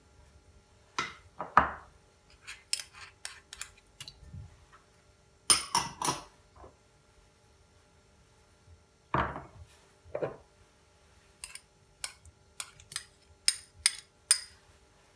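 Small glass dishes clinking and knocking against a glass mixing bowl as marinade ingredients are tipped in: a few louder knocks spread out, then a run of quick light clicks near the end.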